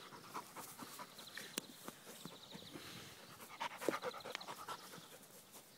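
Black Labrador panting close by, soft quick breaths with a few louder huffs a little before the end.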